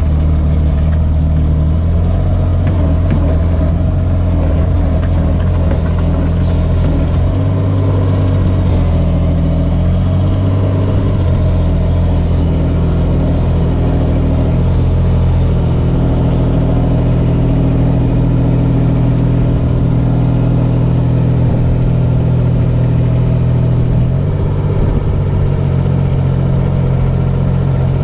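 Kubota U17-3 mini excavator's diesel engine running steadily under load as the machine tracks up steel loading ramps, its note shifting several times as the load changes.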